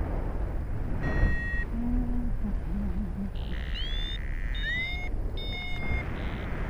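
Strong wind buffeting the microphone, a steady low rumble, with a few short high beeps and quick rising chirps over it.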